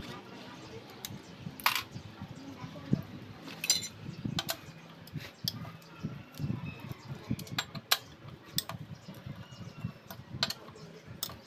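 Irregular metallic clinks and taps of small steel engine parts and tools being handled against an open aluminium motorcycle crankcase, with a few sharper clacks and a brief rattle.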